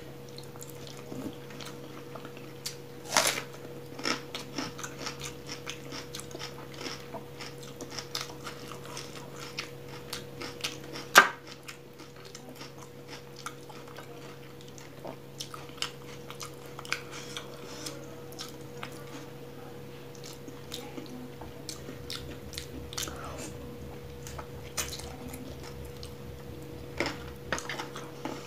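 Close-miked eating: chewing and mouth smacks, along with a hand mixing rice into oily chicken curry gravy on a plate, in many small clicks. There is a sharp, louder click about eleven seconds in, and a faint steady hum underneath.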